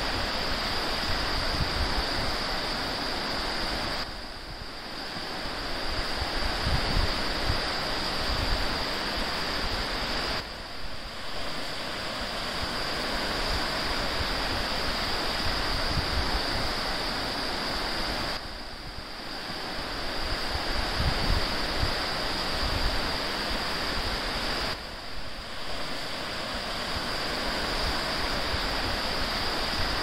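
Steady rushing noise of a waterfall, with gusts of wind rumbling on the microphone and a steady high-pitched hiss over it. The sound dips briefly four times, as if the recording cuts between takes.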